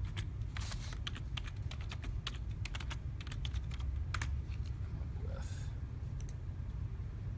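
Computer keyboard typing: a quick run of keystrokes over the first four seconds, then a few scattered keystrokes.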